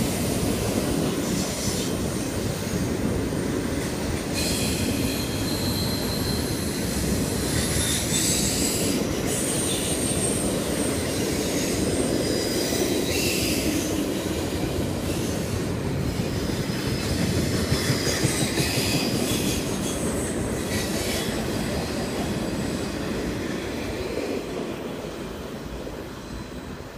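Double-stack intermodal container train rolling past, its steel wheels rumbling on the rails, with high wheel squeals that come and go. The sound fades over the last few seconds as the end of the train pulls away.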